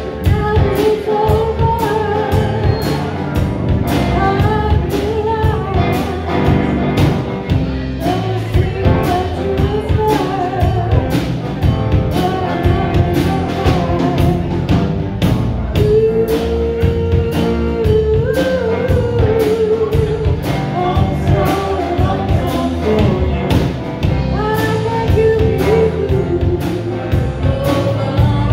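Live band playing a song: a woman singing lead over electric guitars, drum kit and keyboard.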